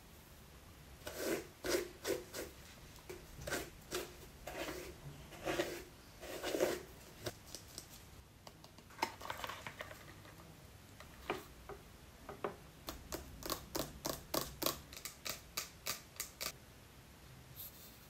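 Taps and scratches from handling hair-dye packaging: a cardboard dye box and a plastic developer bottle. They come in scattered groups at first, then in a quick run of about four taps a second that stops shortly before the end.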